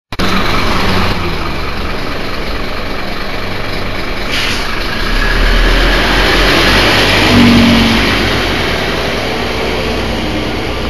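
Scania K230UB bus's DC9 five-cylinder diesel engine running, heard from inside the bus. It swells louder for a few seconds about halfway through, then eases back.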